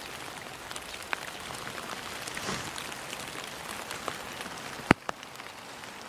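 Rain starting to fall: many scattered raindrop taps over a steady hiss, with one sharp, louder tap about five seconds in.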